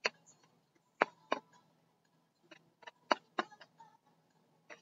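A deck of oracle cards being shuffled by hand: about ten sharp, unevenly spaced clicks and slaps of the cards against each other.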